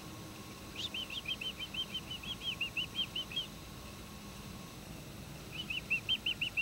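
Finches chirping: two quick runs of short repeated chirps, about five a second, the first starting about a second in and the second near the end.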